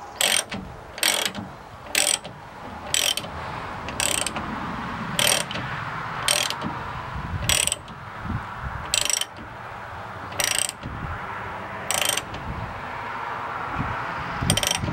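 Ratcheting combination wrench clicking on each back-swing as a nut is turned: a short burst of ratchet clicks about once a second, spreading out to about every second and a half later on.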